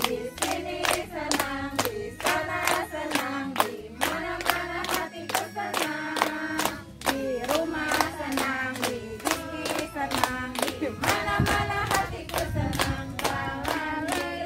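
A group of women singing a song together while clapping their hands in a steady rhythm, about three claps a second.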